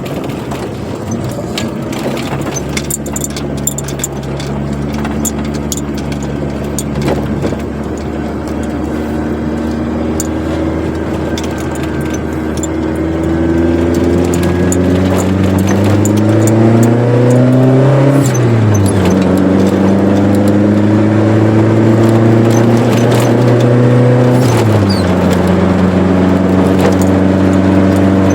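Four-cylinder engine of a Chevrolet Corsa with a sport exhaust pulling through the gears. The note holds fairly steady at first, then twice rises in pitch and drops sharply at an upshift, about two-thirds of the way in and again near the end, growing louder as it accelerates. Light clicks and rattles come through now and then.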